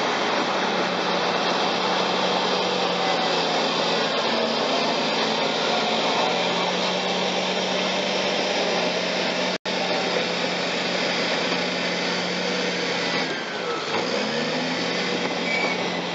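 CAT D6T bulldozer's diesel engine running steadily under load as it pushes mud with its blade. The engine note dips briefly near the end and then picks up again, and the sound cuts out for an instant just past halfway.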